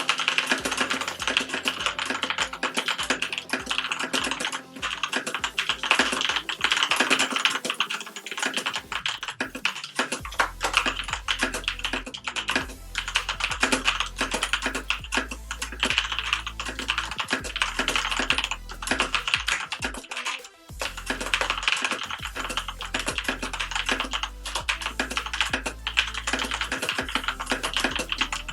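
Fast typing on an Azio MK Mac mechanical keyboard with Kailh Brown switches: rapid, dense key strokes, tactile switches without the click of blues, with a short pause about twenty seconds in. Background electronic music plays underneath, its bass line filling in about ten seconds in.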